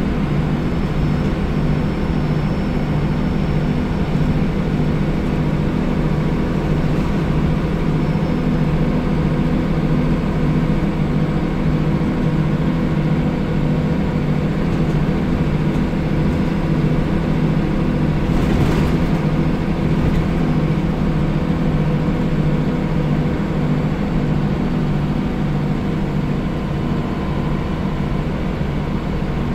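Scania L94UB single-deck bus heard from inside the passenger saloon while under way: a steady engine drone holding an even pitch, with road noise. A brief rushing noise comes about two-thirds of the way through.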